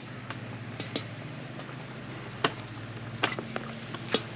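Metal ladle clinking and scraping against the pot and bowl while chicken and dumplings are dished up: scattered sharp clicks, the loudest about two and a half seconds in and again near the end, over a steady low background hum.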